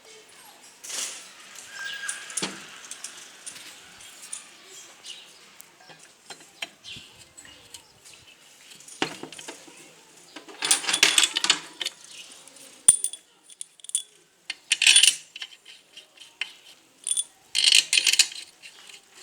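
Metal hand tools and engine parts clinking and rattling in irregular bursts, loudest about ten to twelve seconds in and again near the end.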